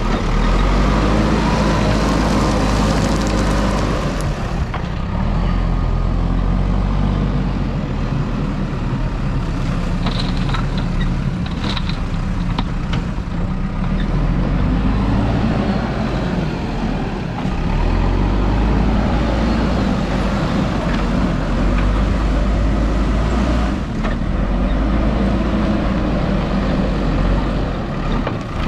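Diesel engine of a JCB 3DX backhoe loader at work, running under changing load with the revs rising and falling. A few sharp clanks come about ten to thirteen seconds in.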